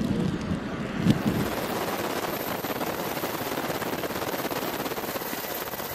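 Wind buffeting the microphone in low gusts, with a sharp click about a second in, then a steady, even rushing noise that fades slightly near the end.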